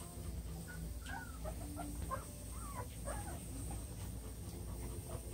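Three-week-old Labrador puppies squeaking and whining: a string of short high-pitched calls that rise and fall, bunched in the first half, over a low steady hum.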